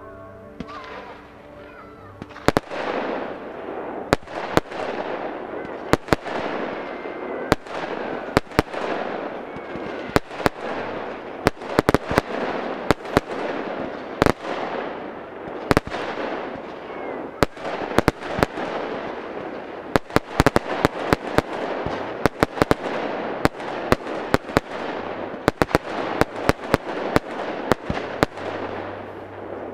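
Aerial fireworks going off in a rapid barrage: sharp bangs several times a second over a continuous crackling, hissing spray that keeps up throughout. It begins about two seconds in.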